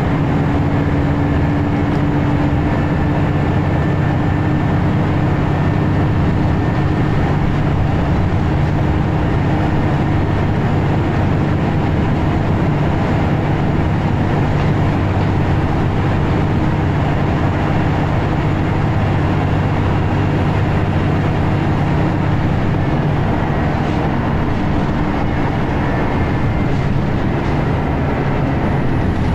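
Scania L94UB bus's diesel engine pulling steadily at motorway speed, heard from inside the passenger saloon: a constant low drone with road and tyre noise.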